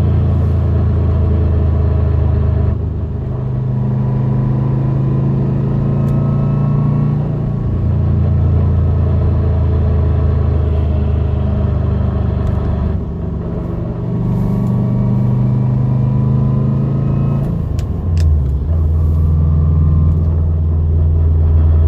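2014 Subaru WRX STI driving, with a loud low drone from the engine and drivetrain that shifts in pitch several times and faint whining tones above it. The owner hears an unexplained weird noise from the passenger side when decelerating. A few sharp clicks come near the end.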